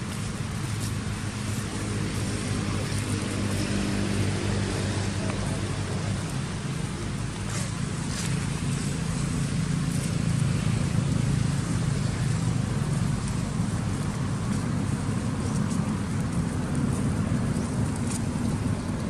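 Steady low hum of a running motor-vehicle engine, with a few faint ticks over it.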